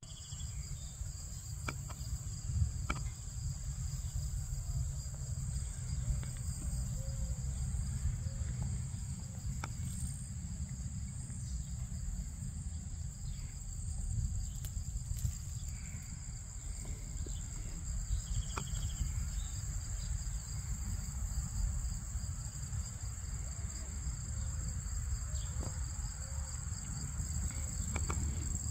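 Steady insect chorus: a continuous high-pitched trill at two pitches over a low rumble, with a few faint clicks.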